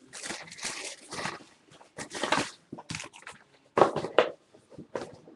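Crinkling and crackling of trading-card pack wrappers being handled and torn open, in short irregular bursts.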